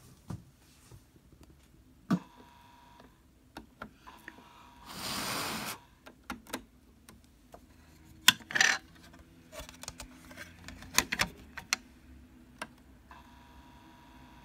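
Clicks and knocks of a 45 rpm vinyl single being handled and set going on a turntable, with a brief rustle about five seconds in. Near the end the turntable is spinning with a faint steady tone, just before the music plays.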